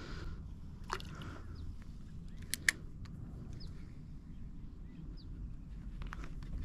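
Open-air ambience by still water: a steady low rumble with a few short bird chirps scattered through, and a couple of sharp clicks about two and a half seconds in.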